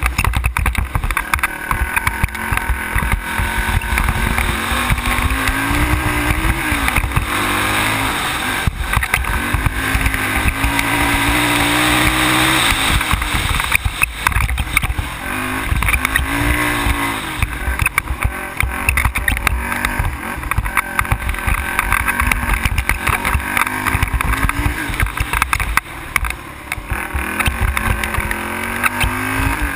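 ATV engine running as the quad travels, its pitch rising and falling several times as the throttle is opened and eased off. Short knocks and rattles come through along with it.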